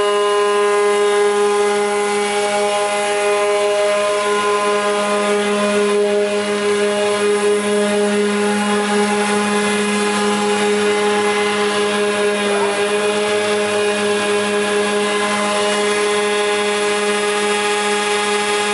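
Kupfermühle 60 four-sided planer-moulder running with no workpiece fed: its motors and cutter spindles give a steady hum that holds one pitch.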